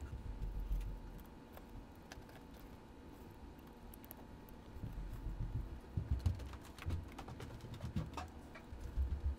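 Handling noise from a small model locomotive chassis being reassembled: light clicks of small plastic and metal parts, with dull bumps of hands and parts against the work mat, mostly in the second half.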